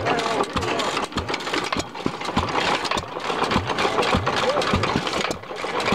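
Fairbanks-Morse Eclipse single-cylinder vertical gas engine running, with an even beat of sharp knocks at about two or three a second.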